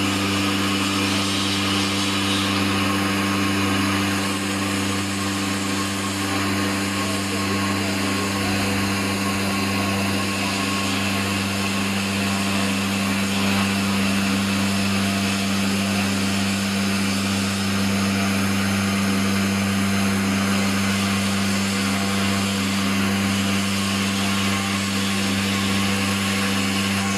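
A stone CNC router running with a steady, unchanging hum.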